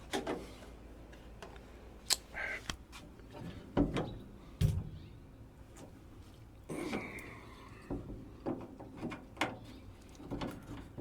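Scattered clicks and knocks with a few dull thunks: hand tools and metal hardware being handled at a truck door while its latch screws are undone.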